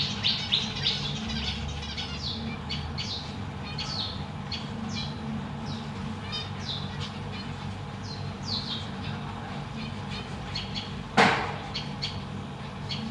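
Zebra finches calling in short, falling chirps, quick and close together at first, then scattered. About eleven seconds in, a single sharp knock stands out as the loudest sound.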